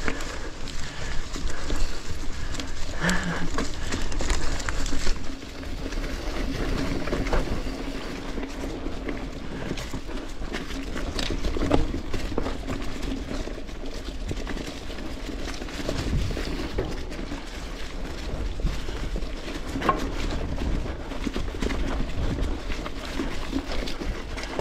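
Mountain bike riding down a rough technical trail covered in fallen leaves: tyres rolling through leaves and dirt with a continuous rumble, and frequent knocks and rattles from the bike over the rough ground.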